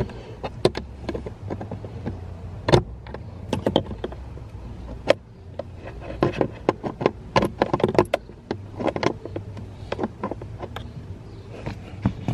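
Irregular metallic clicks and clinks of an adjustable wrench working a small, tight screw under a car's dashboard, at times several in quick succession, over a low steady hum.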